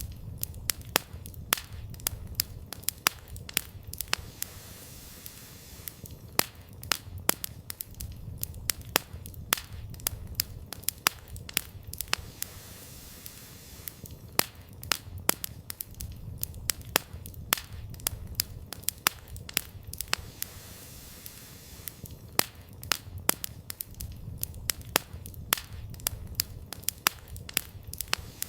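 Campfire crackling: frequent sharp pops and snaps of burning firewood, coming in irregular clusters, over a low steady rumble of the flames.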